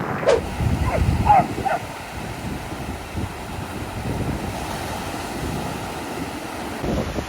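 Ocean surf and wind buffeting the microphone, with three or four short, falling whines from a dog in the first two seconds.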